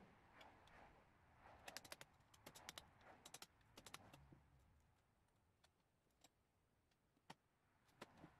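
Faint, light taps of a red-headed mallet on a milling machine's spindle head, knocking it into tram: quick flurries of clicks between about two and four seconds in, then a few single taps spaced about a second apart.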